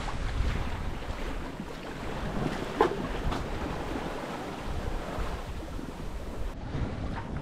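Sailboat under way at sea: water rushing and sloshing along the hull with wind buffeting the microphone, and a short louder knock about three seconds in.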